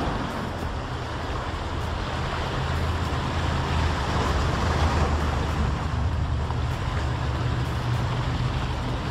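Steady engine hum and road noise inside a moving car.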